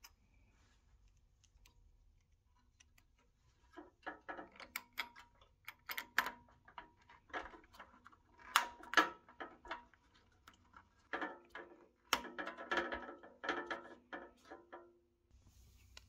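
Runs of small clicks and rattles as a white sidewall ring and a chrome hubcap are worked and pressed onto a 1960s Nylint toy truck's plastic wheel. They start about four seconds in, pause briefly after about ten seconds, and carry on until near the end.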